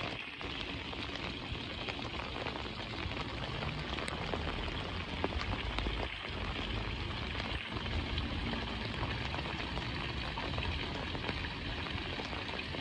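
Steady rain falling, a dense hiss scattered with the sharp ticks of single drops.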